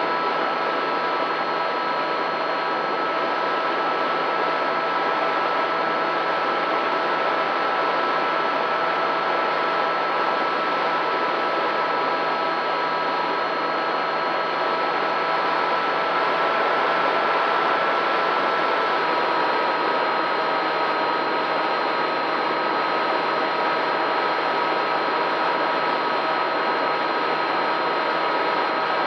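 FPV quadcopter's brushless motors and propellers whining steadily with a rushing hiss, the whine lifting slightly in pitch a little past halfway, then dropping back.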